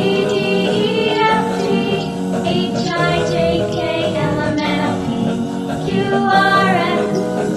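Background music with a singing voice carrying a melody, steady throughout.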